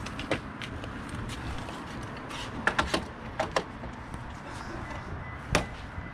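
Scattered wooden knocks and clicks from plywood bench parts, rails and clamps being handled, a quick cluster a little after two and a half seconds and one sharper knock near the end, over steady outdoor background noise.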